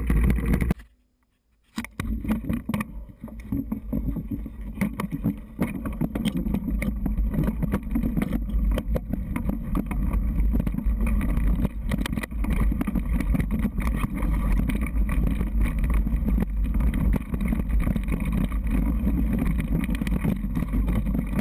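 Mountain bike riding a rough dirt trail: a steady low rumble of wind and motion on the camera microphone with frequent knocks and rattles of the bike over the bumps. The sound drops out for about a second near the start.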